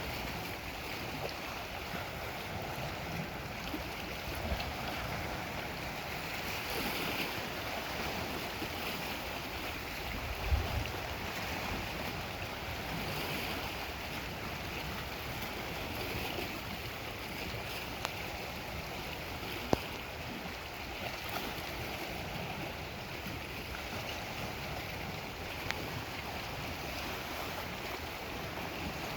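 Lake Superior waves washing steadily against the shore, with a brief low thump about ten seconds in.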